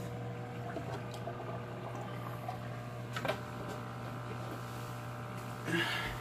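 Steady hum of aquarium pumps with circulating water, broken by two small water splashes, one about three seconds in and a louder one near the end.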